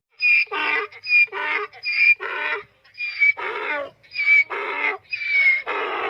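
Donkey braying: a run of about six hee-haws, each a short high squeal followed by a longer, lower haw, repeated with hardly a pause.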